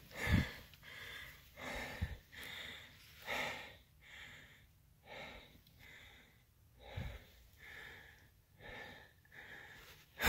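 A hiker breathing hard from climbing, rhythmic in-and-out breaths about once a second close to the microphone, with a few faint low thumps.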